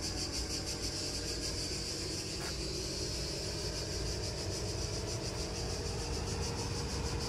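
Mercedes-Benz ML 250 BlueTEC's four-cylinder diesel engine idling steadily, with an even high hiss over it.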